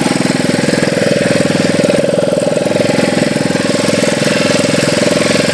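Small inboard engine of a bangka (Filipino outrigger boat) running steadily under way, a loud fast even beat.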